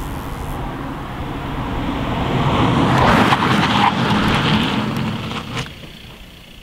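Volkswagen Golf 110TDI's 2.0-litre turbo-diesel four-cylinder driving fast past, with engine and tyre noise swelling to its loudest about three seconds in, then fading as the car pulls away.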